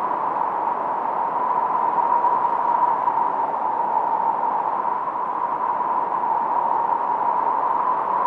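1972 Minimoog synthesizer producing steady filtered noise: a mid-pitched hiss with a faint whistling tone at its centre.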